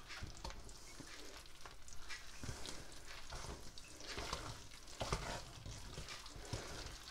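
Wire hand whisk stirring thick red velvet cake batter in a stainless steel mixing bowl, as liquid is worked into the flour: irregular wet scraping strokes, with a few sharper ticks.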